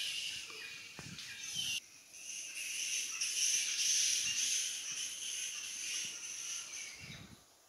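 Steady, high-pitched chorus of insects in the trees, dipping briefly about two seconds in before resuming.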